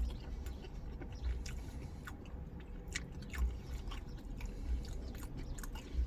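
A person chewing a mouthful of pizza close to the microphone, with scattered small clicks from the mouth.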